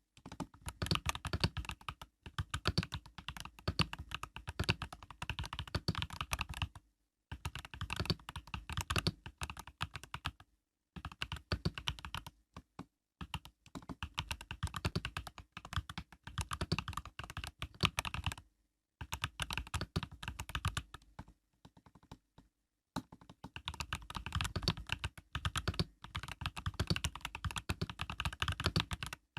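Typing on an Epomaker EK68 mechanical keyboard with Epomaker Budgerigar tactile switches with POM stems: fast runs of keystroke clicks in bursts of a few seconds, broken by short pauses.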